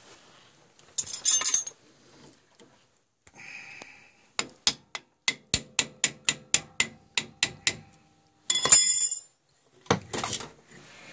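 Hand tools clinking and striking on metal boiler-pump fittings. A run of about a dozen sharp, evenly spaced strikes comes at about four a second, then a loud ringing metallic clang.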